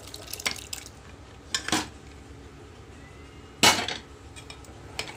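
Metal ladle clinking and scraping against metal cooking pots as thick cooked toor dal is scooped and poured into a pot of vegetables. There are a few sharp metal knocks, the loudest about three and a half seconds in.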